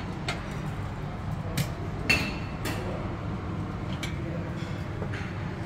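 Dining-room clatter: scattered sharp clinks of cutlery and crockery, the loudest about two seconds in, over a steady low hum and faint background voices.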